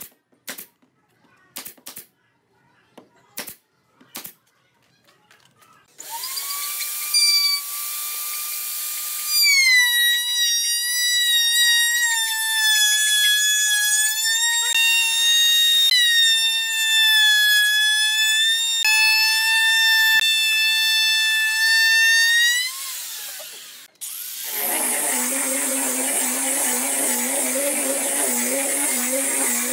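A pneumatic nail gun fires a series of sharp shots into pine boards. Then a wood router starts and runs for about eighteen seconds with a loud, steady high whine that sags a little in pitch as it cuts, before it is switched off. Near the end an angle grinder with a sanding disc starts up and runs with a lower, rougher sound.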